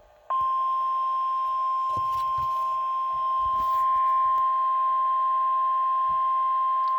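NOAA Weather Radio 1050 Hz warning alarm tone: a single steady pitch that switches on a moment in and holds, over faint radio hiss. It is the alert that signals a National Weather Service warning broadcast is about to follow.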